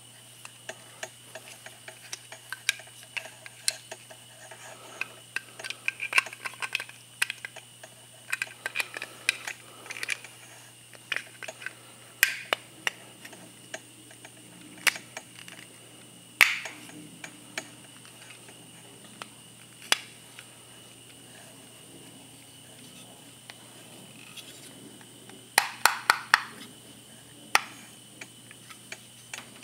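Hard plastic parts of a Garmin Striker 4 transducer mounting bracket clicking and knocking as they are handled and fitted together by hand. The clicks are irregular and come in several flurries, the loudest a quick run of clicks near the end.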